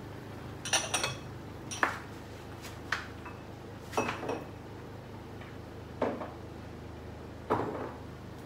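Metal pots and lids on a gas stove clinking and knocking about six times at irregular spacing, the first two and the last the loudest, over a steady low hum.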